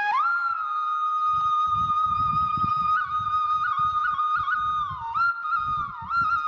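Background music: a flute melody of long held notes with quick ornamental turns and short glides between pitches.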